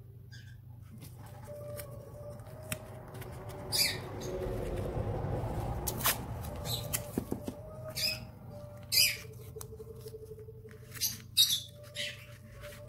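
Paper and masking tape being handled on a tabletop: scattered short scratchy rustles and crinkles, a few louder than the rest, over soft background music.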